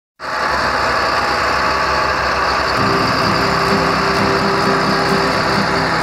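Large John Deere diesel tractor engine running steadily under load while packing a corn silage pile, with a steady pitched hum joining about three seconds in.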